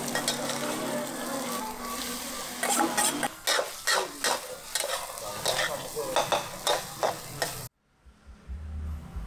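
Food sizzling as it is stir-fried, with a metal spatula scraping and knocking against the pan in quick, uneven strokes and a steady hum under it for the first three seconds. The frying cuts off abruptly near the end, leaving a quieter low rumble.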